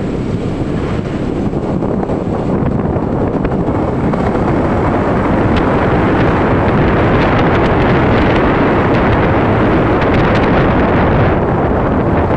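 Wind rushing over the microphone of a moving motor scooter, with the scooter's engine running under it. It grows louder about five seconds in as the scooter speeds up to about 40 km/h.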